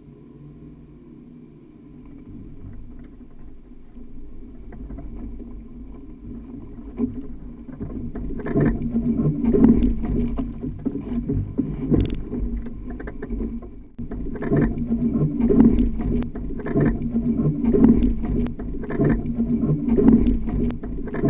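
Subaru Forester's flat-four engine pulling under load up a steep gravel rut. Loose stones crunch and scrabble under the tyres as a wheel spins for grip. The noise builds over the first several seconds and stays loud after that.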